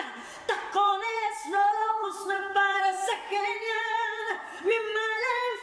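A woman singing a cappella, belting long held notes in a strong chest voice with short breaks between phrases.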